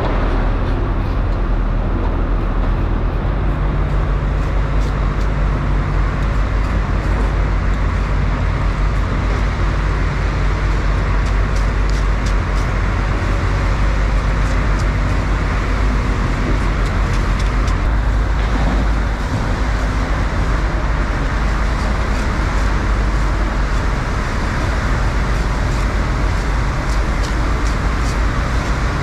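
Steady low motor-like rumble with an even hiss, with faint scraping strokes of a broad blade over swordfish skin.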